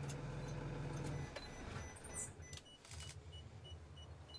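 Low steady hum of an idling vehicle engine, which drops quieter about a second in.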